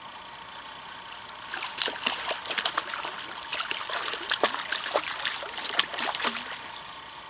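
A hooked grayling splashing at the river surface as it is played in on a spinning rod. There is a flurry of irregular splashes from about a second and a half in until about six seconds.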